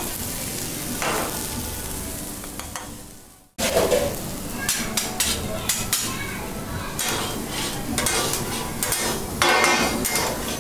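Food sizzling on a large flat Mongolian barbecue griddle while a cook stirs and turns noodles and vegetables with long metal paddles. The sound breaks off briefly about three and a half seconds in, then returns with repeated scraping strokes of the paddles against the hot griddle.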